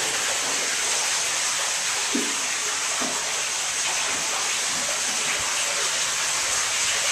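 Water rushing steadily through an Archimedes screw turbine, a constant hissing flow with no break.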